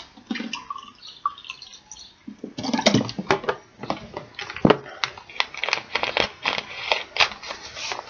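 Water poured from a plastic bottle into a drinking glass, splashing and gurgling. It starts about two and a half seconds in, after a quieter stretch of faint handling sounds.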